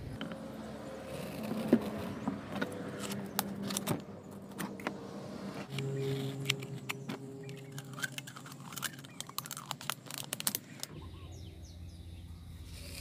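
Plastic bottles and a plastic cup being handled, giving a scattered string of light clicks and knocks as cuttings are pushed into wet sand packed in cut-down plastic drinking bottles. A steady low hum runs through the middle.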